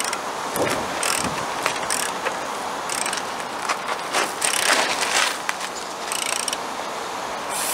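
A ratchet clicking in short, uneven bursts as bolts are worked on the engine mounts of a Dennis Dart bus.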